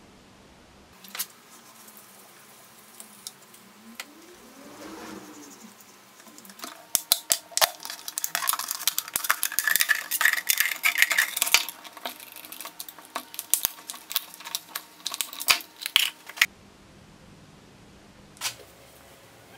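Thin clear plastic bottle crackling and crinkling as a utility knife cuts around it: a dense run of sharp clicks and crunches that starts about seven seconds in and stops about sixteen seconds in.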